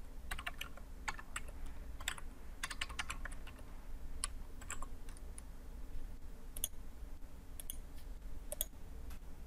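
Computer keyboard keystrokes, a scattered run of light taps that comes thick for the first few seconds and then only now and then, over a low steady hum.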